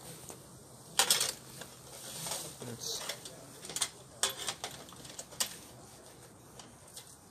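Scattered sharp clicks and light knocks of hard objects being handled, the loudest about a second in, with a faint voice underneath.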